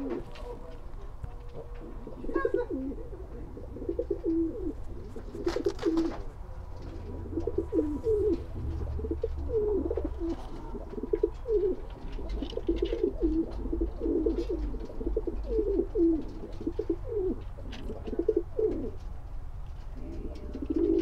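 Domestic pigeons cooing over and over, one short coo after another, with scattered light clicks and one brief clatter about six seconds in.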